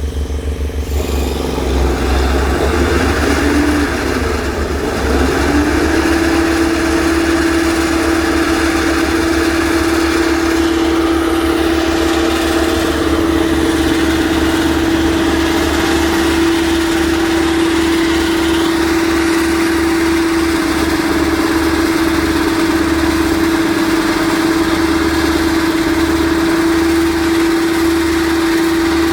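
A machine's engine running steadily at a constant speed, with a strong steady hum that wavers for the first few seconds and then settles, over a fast low throb.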